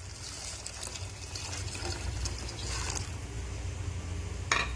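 Water poured from a bowl into a steel pot of tomato gravy, splashing and trickling for about three seconds, over a steady low hum. A brief sharp sound near the end.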